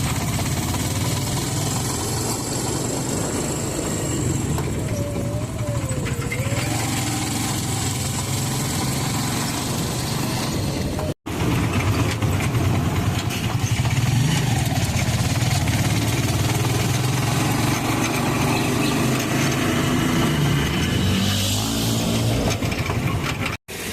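Steady traffic noise: vehicle engines running with a low rumble, broken by a brief dropout about eleven seconds in.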